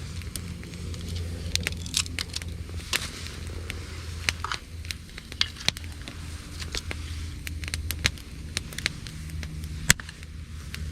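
Campfire of gathered branches and driftwood crackling, with irregular sharp pops, the loudest about ten seconds in, over a steady low hum.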